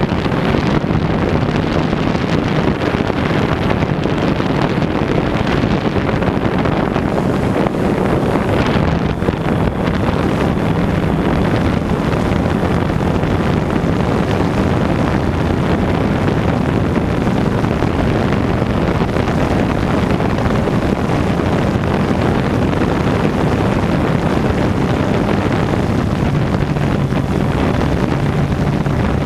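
DJI Phantom 2 quadcopter's propellers and motors running steadily as it hovers and flies, heard through the GoPro camera it carries, with wind buffeting the microphone. A steady low hum sits under dense rushing noise.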